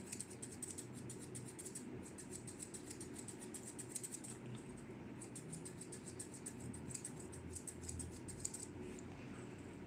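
Curved chunking shears snipping through a Shih Tzu's facial fur: rapid, light metallic snips, several a second, in runs with short pauses.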